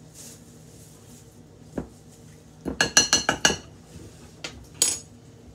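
A metal fork clinking and scraping against a mixing bowl as cookie dough is mashed: a single knock, then a quick run of about six ringing clinks, then one more near the end.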